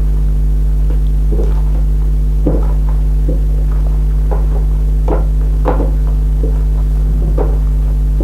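Loud steady electrical hum, with about a dozen short irregular sticky clicks and smacks of slime being squeezed and pulled apart by hand.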